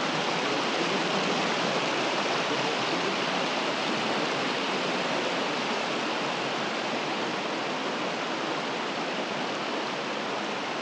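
Mountain creek rushing steadily over a rocky bed: a loud, even hiss of flowing water that eases off slightly near the end.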